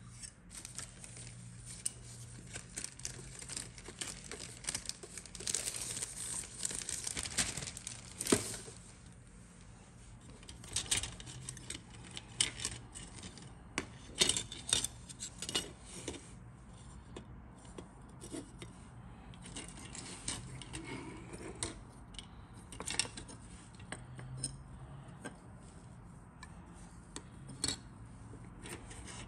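Hard plastic model kit parts being handled: sprues and fuselage halves clicking and tapping against each other and the cutting mat, in irregular clusters. About five to eight seconds in comes a dense run of crackling clicks, ending in one louder click.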